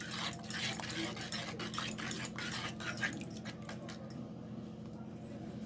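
Small wire whisk beating milk powder into milk and ghee in an aluminium kadhai: quick, irregular clicks and scrapes of the wire on the pan. They grow sparser after about three seconds, over a steady low hum.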